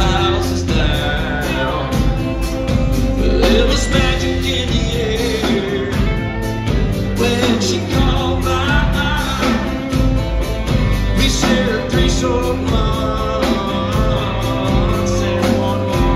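Live country band playing a slow song, a male lead singer over acoustic guitar, bass and drums, heard from the audience.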